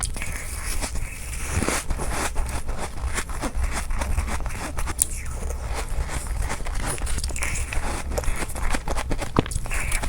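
Ice being bitten and chewed close up: a dense run of irregular crunches and crackles over a steady low hum.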